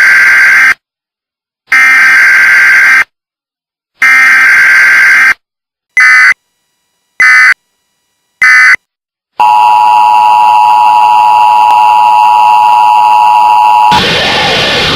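Emergency Alert System SAME tones: three long digital data bursts about a second and a half apart, then three short bursts, then the steady two-tone EAS attention signal held for about four and a half seconds. It cuts off near the end, and a different, noisier sound takes over.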